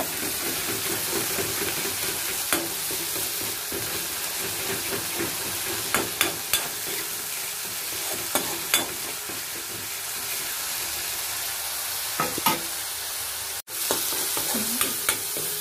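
Onion, tomato and ground-spice masala sizzling steadily in mustard oil in a pan on the stove, while a spatula stirs it and clicks against the pan several times.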